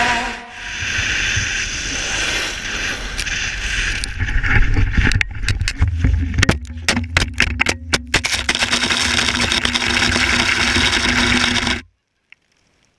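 Rush of wind across an action camera's microphone while a snowboard slides and scrapes over groomed snow. From about four to nine seconds in there is a run of sharp knocks, and the sound cuts off suddenly near the end.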